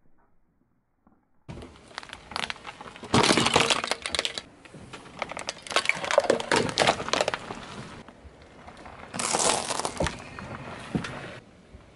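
Hard plastic cracking and crunching under a car tyre: rapid snaps and crackles in three loud bouts, starting about a second and a half in and cutting off near the end.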